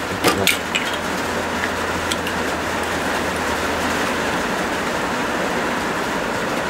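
Heavy rain on the roof, a steady hiss throughout. A few sharp plastic clicks near the start come from the cap of a fuel-mixing bottle being handled.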